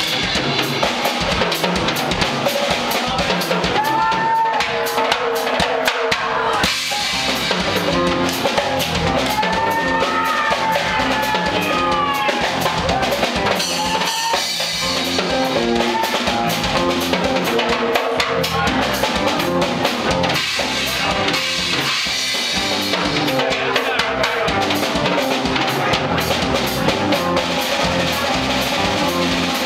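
Live rock band playing, the drum kit's bass drum and snare keeping a steady beat to the fore, with electric bass and guitars over it and no singing.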